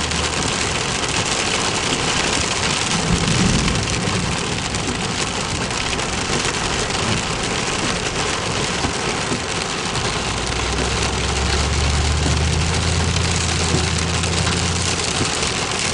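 Heavy rain pouring steadily, during a severe thunderstorm. A low vehicle engine hum comes in about ten seconds in and fades near the end.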